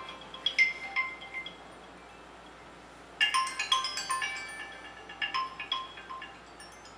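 Mobile phone ringtone: a short melodic phrase of bell-like notes that stops about a second and a half in and plays again a couple of seconds later.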